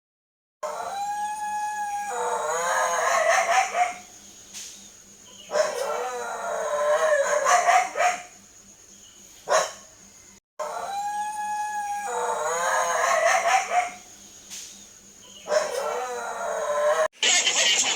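A dog howling: one long held note, then wavering howls that rise and fall, and a short yip. The same sequence of howls plays again from about ten seconds in.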